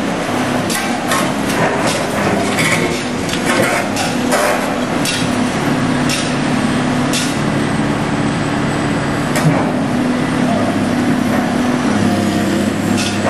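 Heavy demolition machinery running steadily, with irregular sharp cracks and clanks of the structure being broken apart.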